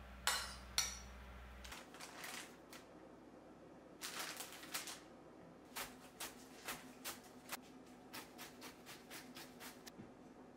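A spoon clinks twice against a ceramic bowl. Then red cabbage is shaved on a mandoline slicer: one longer stroke, and from about halfway a quick run of short rasping strokes, about three a second.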